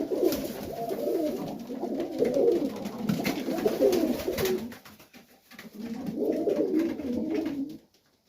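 Serbian highflyer pigeons cooing in their loft, several birds' coos overlapping. The cooing breaks off briefly about five seconds in, resumes, and stops shortly before the end.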